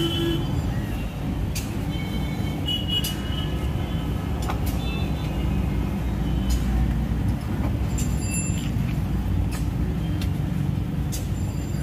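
Steady low rumble of road traffic, with a few light clicks scattered through it.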